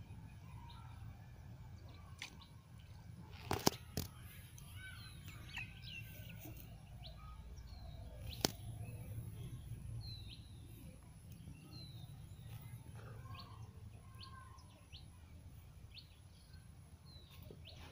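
Birds chirping in short scattered calls over a low steady rumble. A few sharp clicks, the loudest sounds, come about four seconds in and once more about eight seconds in.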